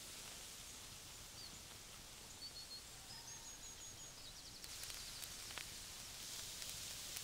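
Faint outdoor ambience: a steady hiss with a few short, high bird chirps in the middle, then a few light clicks and a brighter hiss from about five seconds in.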